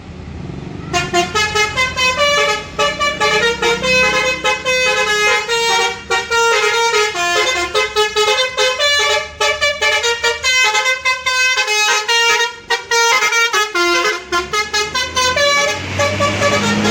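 Tour bus's Basuri telolet musical horn playing a fast tune of short notes stepping up and down. It starts about a second in and stops near the end, with a bus engine running low underneath.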